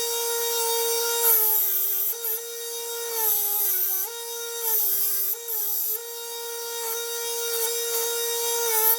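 Electric grinder motor running with a steady high whine. Its pitch sags several times under load, and bursts of hissing grinding noise come with the contact, as steel is ground in knifemaking.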